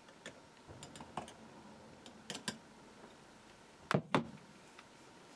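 Handling noises: light clicks and knocks of small parts and an oil can being picked up and set down on a workbench mat, with two louder knocks in quick succession about four seconds in.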